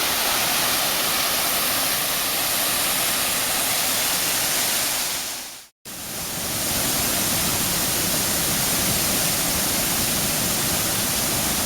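Waterfall pouring steadily, an even loud rush of falling water. About six seconds in the sound cuts out for a moment, then fades back in to the same steady rush.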